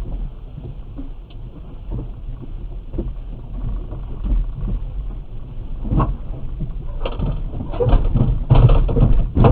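Dashcam audio of a car nudging forward into parked motorcycles: a low rumble with scattered knocks, then a louder run of knocks and clattering impacts over the last few seconds.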